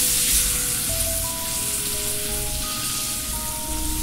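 Blackened mahi-mahi fillets sizzling steadily in hot oil in a stainless-steel skillet. Background music plays over it: a melody of held notes stepping up and down above a low pulsing bass.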